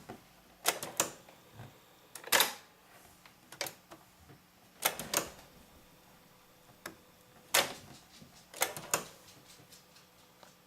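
Mechanical piano-key buttons of a Realistic SCR-8 boombox's cassette deck being pressed and released over and over: about ten sharp plastic clacks, several in quick pairs, over a faint hum.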